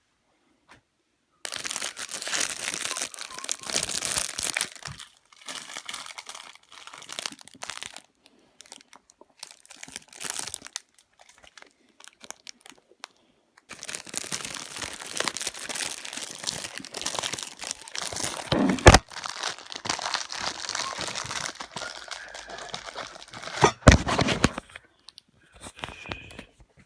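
Crinkling and rustling close to the microphone in two long stretches, the second broken by two sharp knocks.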